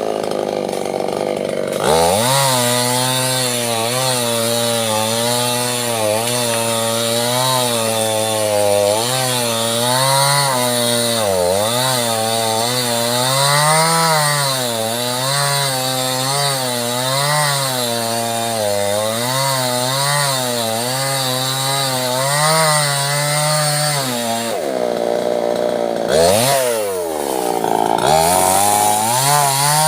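Small two-stroke chainsaw cutting sengon wood, its engine speed wavering up and down as the chain bites. It drops back briefly about 25 seconds in, then revs up again.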